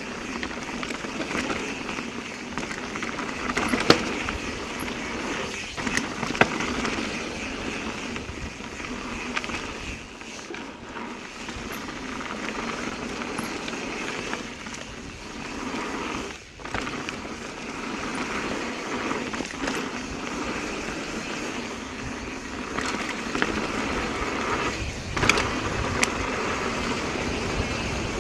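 Mountain bike being ridden on a dirt trail: steady tyre and wind noise with scattered rattles and sharp knocks from the bike over rough ground.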